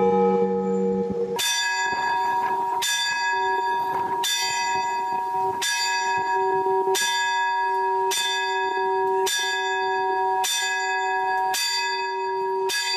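A church bell in a belfry struck again and again by hand with a pull rope, ten strokes about one every 1.2 seconds, each ringing on into the next. These are the hour strokes counted out toward the twelve of midnight, and a ring from an earlier stroke carries on until the series begins.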